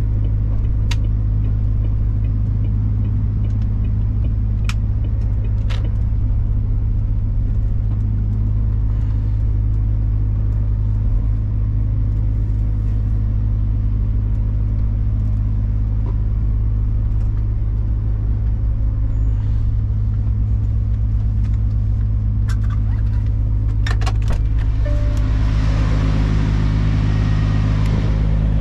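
Truck's diesel engine running steadily, heard from inside the cab, with a few light clicks. About three-quarters of the way through a broad hiss rises over the engine drone.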